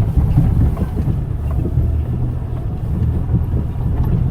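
Off-road vehicle's engine pulling steadily under load in four-wheel-drive low range while climbing a hill on steady throttle, with wind noise on the microphone.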